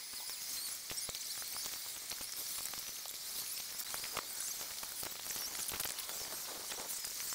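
Steady crackling, hissing noise with scattered sharp clicks.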